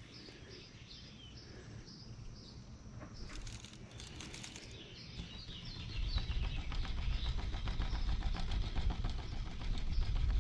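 Small birds chirping in short, quickly repeated calls. From about six seconds in, a low rumble joins and grows louder.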